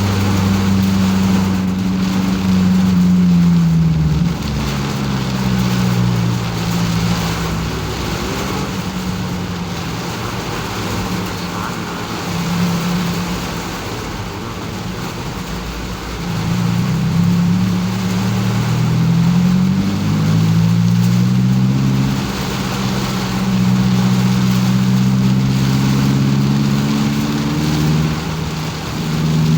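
Car engine heard from inside the cabin, its pitch climbing and dropping back in steps as it shifts up through the gears, in two spells of acceleration. A steady hiss of road noise lies underneath.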